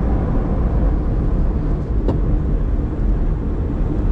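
Steady rumble of a car driving along a highway, with engine and road noise.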